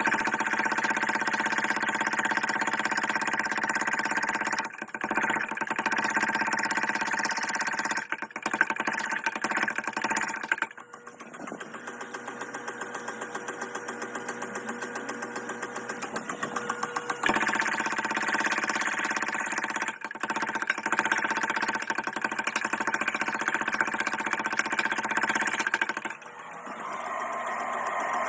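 A blacksmith's power hammer striking, sped up so its blows run together into a fast, engine-like rattle. The hammering breaks off briefly a few times and runs quieter for several seconds in the middle.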